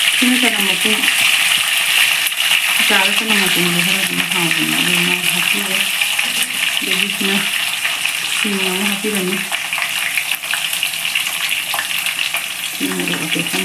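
Food frying in hot oil in a kadai on a gas stove, a steady hissing sizzle, as garlic cloves and chopped greens are dropped into the pan.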